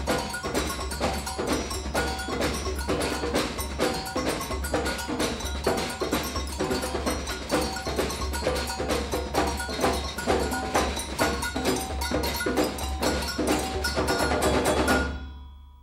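Percussion music: a fast, dense run of strikes mixing pitched notes with dry knocks, fading out and stopping near the end.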